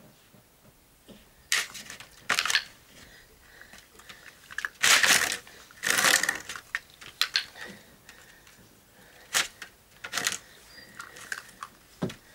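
Scraping and rustling of a thin cardboard box lid on concrete as it is pushed by hand and stepped on by a puppy: eight or so short noisy scrapes at irregular intervals, the two longest, loudest ones near the middle.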